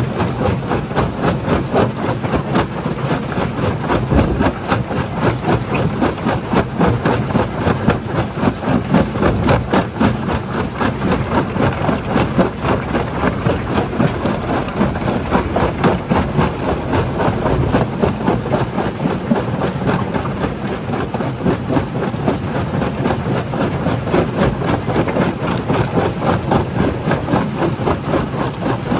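Stone jaw crusher running under load: a steady heavy machine rumble with a dense, continuous clatter of rock being crushed.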